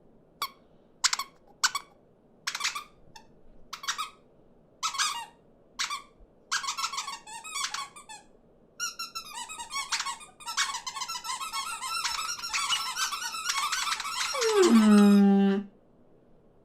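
Small cartoon birds' chirping voices: separate short squeaky chirps at first, quickening into a dense, overlapping chattering squabble, then near the end one lower call that slides down in pitch.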